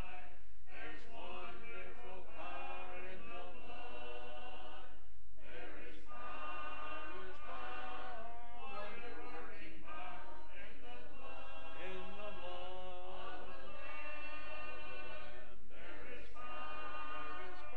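Congregation singing an invitation hymn a cappella, many voices together without instruments, with short breaks between lines about half a second and five seconds in.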